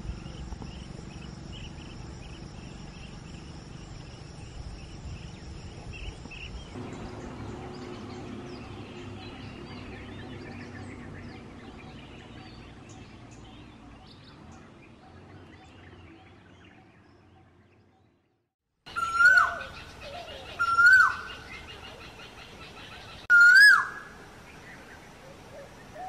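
Faint outdoor background with faint bird chirps, then, after a short break, a stonechat gives three short whistled calls, each a quick upward flick of pitch, about two seconds apart.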